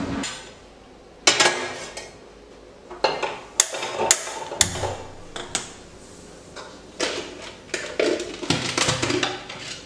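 Stainless-steel saucepan knocking and clanking against the cast grate of a gas stove as it is set down and shifted on the burner, a series of sharp metallic knocks, some ringing briefly.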